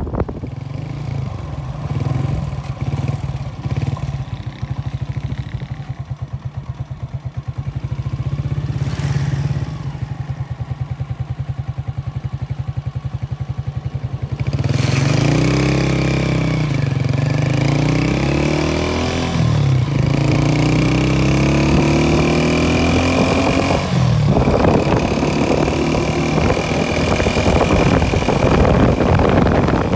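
A motorcycle engine runs at a low, steady, evenly pulsing beat. About halfway through it gets louder and climbs in pitch in three runs, dropping back briefly between them as the bike picks up speed, with a thin high whine over it.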